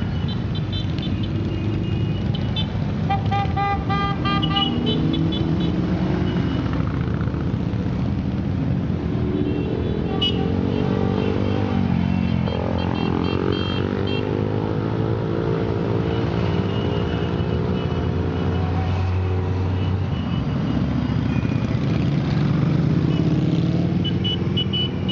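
Many motorcycles riding slowly past in a steady stream, their engines running continuously with some pitch changes as bikes go by. Horns beep in short clusters several times throughout.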